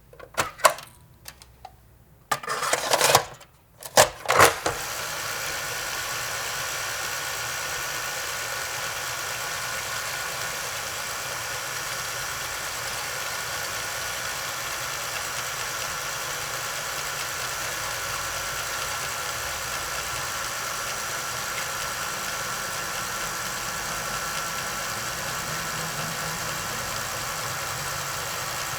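Solidex Model 829 Beta tape rewinder: several sharp clicks and clacks as it is opened, a Beta tape is put in and the lid is shut. Its motor then starts about four and a half seconds in and whirs steadily, rewinding the tape.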